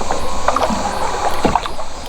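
A hooked crappie being landed at a boat: several short, sharp knocks and handling noises over a wash of water noise, the loudest knock about a second and a half in.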